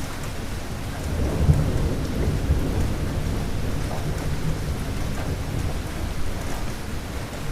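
Thunderstorm: steady rain with low rolling thunder that swells about a second and a half in.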